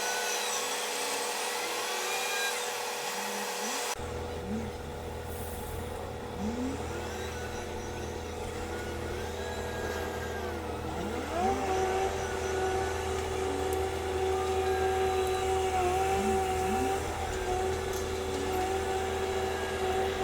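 Komatsu WA500 wheel loader's diesel engine revving up again and again as it works, each rev a quick rise in pitch. From about halfway through a steady high whine is held under the revs.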